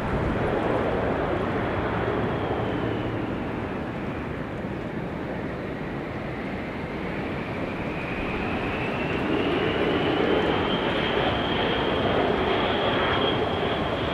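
Boeing 747-8F freighter on final approach: a steady rush from its four GEnx turbofan engines with a high whine. The whine falls in pitch midway, then climbs again as the sound grows louder in the second half.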